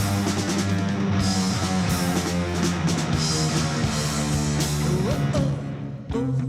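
Live rock band playing an instrumental passage: electric guitar, bass and drum kit with cymbals. Near the end the cymbals drop away and the band falls back briefly before carrying on more quietly.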